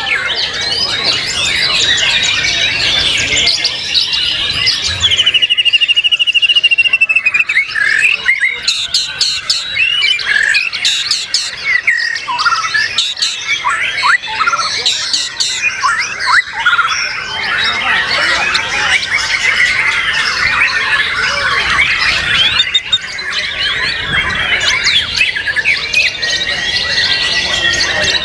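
White-rumped shamas (murai batu) singing in competition, several birds at once: a loud, dense mix of varied whistles, rapid trills and chattering calls, with a fast buzzing trill about five seconds in.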